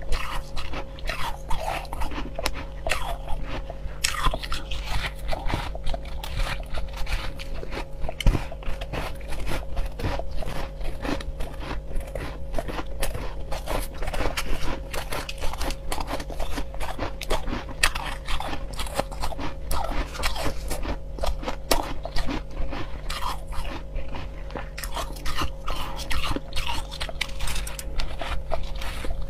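Crushed ice being bitten and chewed close to the microphone: a continuous, irregular run of crisp crunches.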